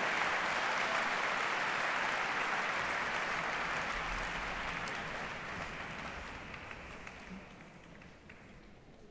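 Audience applauding in a concert hall, the applause dying away over the last few seconds.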